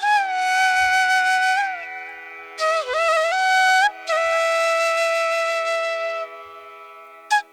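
Flute music over a steady drone: long held notes that slide and dip in pitch between them, the longest held for about two seconds before fading near the end.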